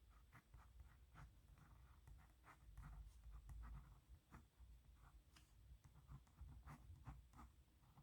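Pen writing on paper: faint, quick scratching strokes in short irregular runs as letters are formed.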